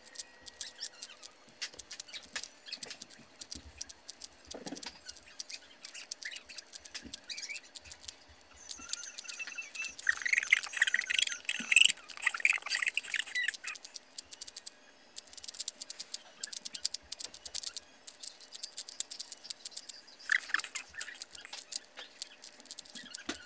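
Rubik's cube being turned rapidly by hand: a dense, uneven run of small plastic clicks and rattles from the layers snapping round. It gets louder and higher-pitched for a few seconds about ten seconds in.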